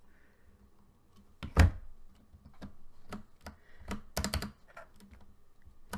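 Keys of a Ducky One 2 Mini mechanical keyboard with brown switches being pressed, giving scattered plastic clacks, with one louder knock about one and a half seconds in and a quick run of clacks about four seconds in.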